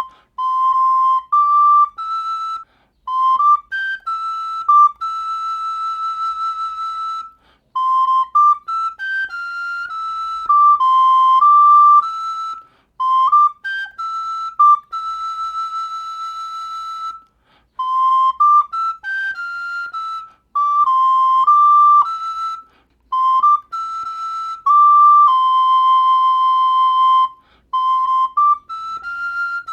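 Soprano recorder playing a melody alone, one note at a time in phrases separated by short pauses.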